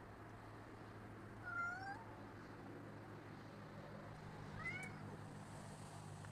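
Domestic cat meowing twice, short rising-then-falling meows about a second and a half in and again near the five-second mark, over a steady low hum.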